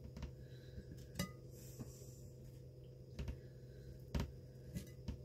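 Faint taps and clinks of a utensil against plates and dishes while food is served out: about half a dozen separate knocks, one with a short ring about a second in, over a steady low hum.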